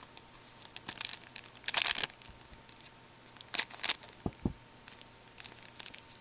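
A hockey card pack wrapper being crinkled and torn open, with the cards rustling as they are handled, in short irregular bursts. The longest rip comes about two seconds in, and two soft low thumps follow a little after four seconds.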